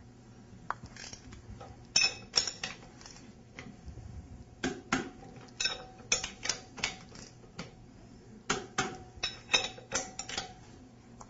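Ratcheting torque wrench clicking in several short runs as it tightens the tie-rod nuts on a waterjet intensifier's end bells toward 80 foot-pounds.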